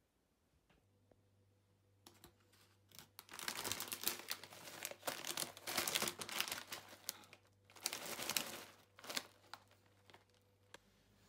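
Plastic snack bag of hina-arare being handled over a plastic takeaway container, crinkling and rustling in irregular bursts from about two seconds in, dying away near the end.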